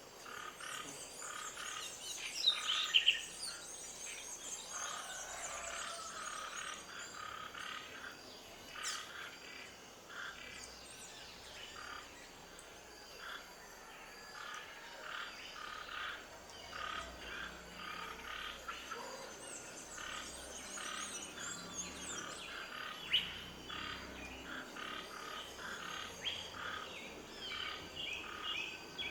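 Outdoor nature ambience of frogs calling in rapid repeated pulses, with birds chirping over them in two spells.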